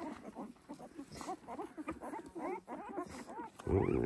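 A litter of young Kangal puppies squeaking and whimpering, many short high calls overlapping one after another.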